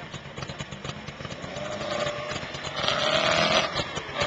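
Ducati racing motorcycle engine idling with a steady run of exhaust pulses, swelling louder for a moment about two to three and a half seconds in before settling back.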